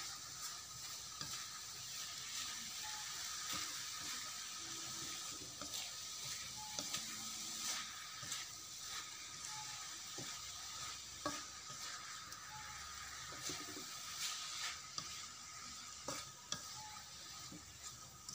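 Sweetened grated-coconut filling with a pandan leaf sizzling in a metal wok as its liquid cooks off, while a spatula stirs it, with scattered scrapes and taps of the spatula against the pan.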